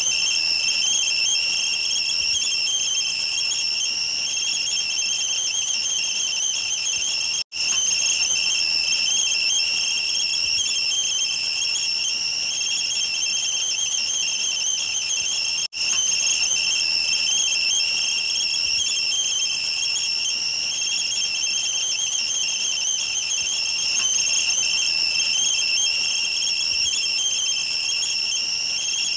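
Whistling kettle at the boil: a steady, shrill, slightly wavering whistle over a light steam hiss. It drops out for an instant twice, about a quarter and about halfway through.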